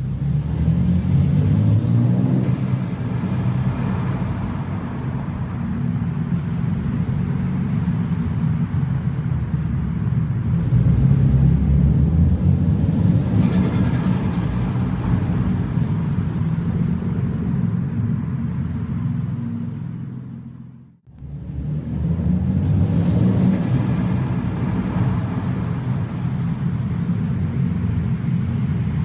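Toyota Supra MkIV's twin-turbo 2JZ-GTE straight-six through a Blitz Nur Spec R exhaust, building up and easing off several times, with turbo flutter when the throttle closes because the stock blow-off valve is blocked. The sound cuts out abruptly about two-thirds of the way through, then returns.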